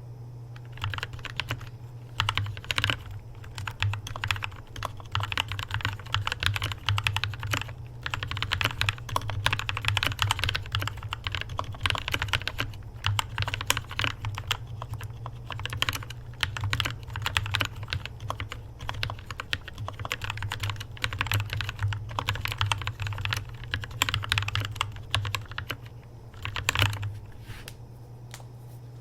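Mechanical keyboard with lubricated switches being typed on in fast, continuous runs with brief pauses, giving a soft, creamy key sound.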